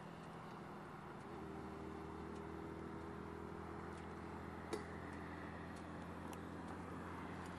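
Faint, steady low hum with a few faint clicks, one sharper click just under five seconds in.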